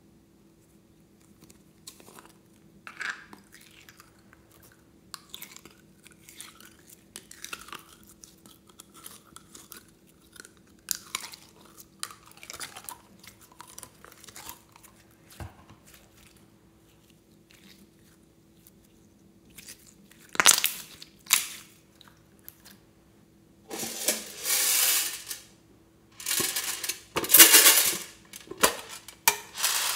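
Soft squelching and plastic crinkling as blue slime is squeezed out of a ridged plastic bottle into a glass tray. In the last third, much louder scraping and rattling of a metal tin box being handled.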